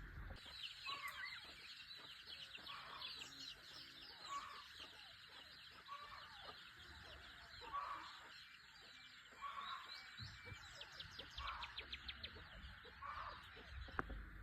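Chickens clucking softly about once a second, with small birds chirping and twittering throughout, and a sharp click near the end.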